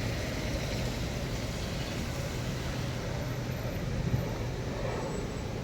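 Steady road noise of a car driving in traffic: engine and tyres on a wet road, running evenly.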